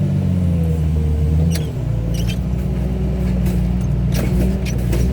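Heavy machine's engine running hard while it pulls the front off a Chevy Suburban. Its pitch shifts and drops about two seconds in. A wavering whine and scattered sharp clicks and cracks sound over it.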